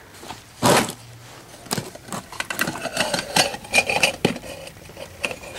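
Small hard objects clicking, clinking and rattling as they are handled, with one louder rustle about a second in.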